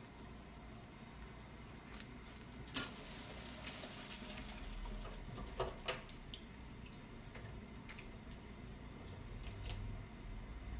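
Faint kitchen handling noises: a sharp click about three seconds in, then a few lighter clicks and knocks, over a low steady hum.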